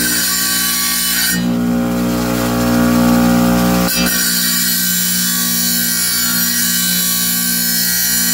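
Wet tile saw's electric motor and blade running with a steady hum. From about a second and a half in, a rougher, slightly louder grinding noise lasts for about two and a half seconds before it settles back to the plain hum.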